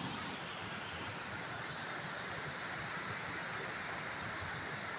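Steady rushing noise, even and unbroken, with no distinct knocks or calls.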